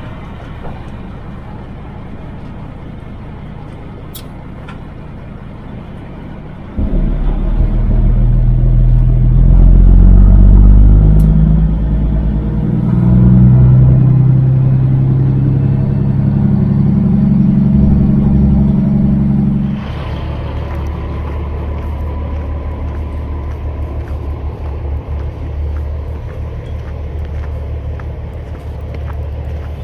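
Semi truck's diesel engine running with a steady low rumble. About seven seconds in it suddenly gets much louder under hard pulling, its note stepping up and down several times, and near twenty seconds it drops back to the quieter rumble.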